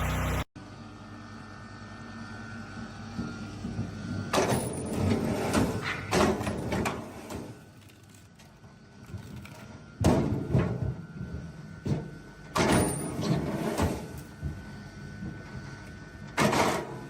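Hydraulic log splitter running with a steady hum. Loud clusters of knocking and cracking come around four, ten and thirteen seconds in and again near the end: wood splitting and split pieces knocking and falling.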